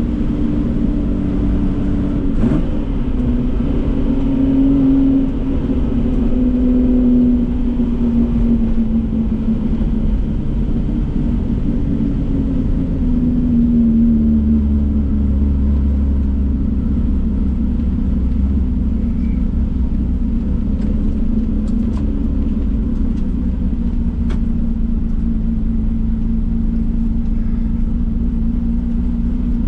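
Datsun 240K racing car's straight-six engine running hard, its pitch rising and falling as it accelerates and lifts, over a deep low rumble, with a few sharp clicks.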